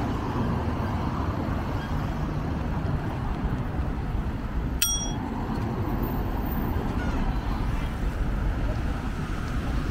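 Steady low rumble of riding along on a bicycle, with a single short bicycle-bell ding about five seconds in.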